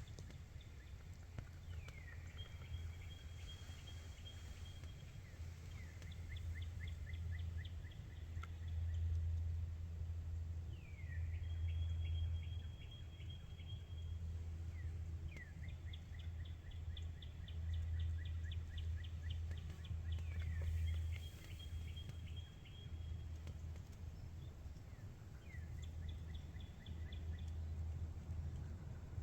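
A songbird singing over and over, each song a quick falling slur followed by a fast, even trill, repeated every four to five seconds. A steady low rumble runs underneath.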